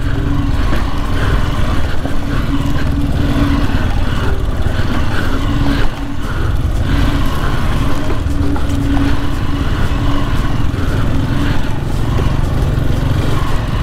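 Hero XPulse 200 single-cylinder motorcycle engine running on a trail ride, over a steady low rumble, its tone coming and going every second or two.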